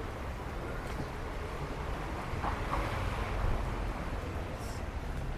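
Wind buffeting the microphone, a steady, fluttering low rumble over faint outdoor ambience.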